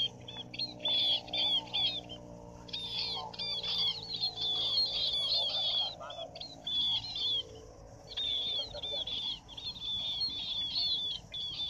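Munias chirping and twittering in fast, densely repeated high calls, with a few brief pauses.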